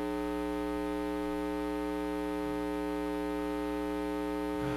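Steady electrical mains hum: a buzz with many evenly spaced overtones that holds unchanged at an even level.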